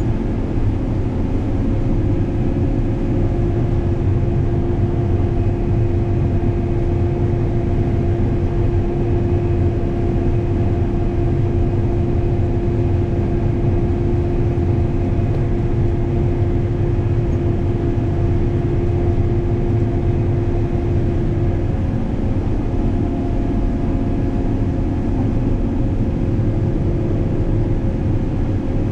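Combine harvester running while cutting corn: a steady, loud machine drone with several held tones. About three quarters of the way through, the main tone drops to a slightly lower pitch.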